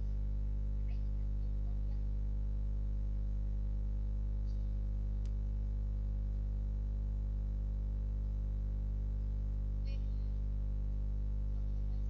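Steady electrical mains hum: a low buzz with a stack of evenly spaced overtones that does not change. A faint click sounds about five seconds in.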